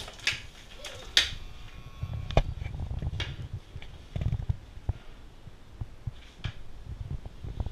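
Sharp clacks of a hockey stick and puck on a Super Deker stickhandling trainer, a few spaced strikes in the first seconds. Then low rumbling and dull thumps follow.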